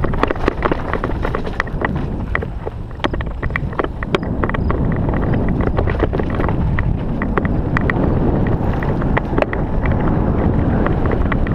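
Wind rumbling on a helmet-mounted camera's microphone during a mountain bike descent, with the bike's rattle and clatter over the rough trail: many sharp clicks and knocks throughout.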